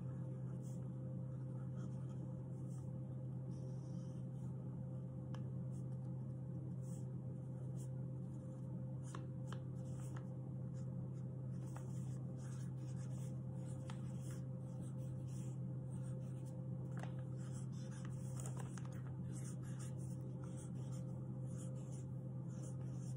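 Pen drawing on a sheet of folded paper: many short, scratchy strokes scattered throughout, over a steady low hum.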